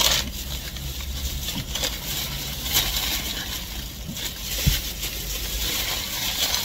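Steady low hum and hiss inside a car, broken by a few light clicks and rustles around the middle.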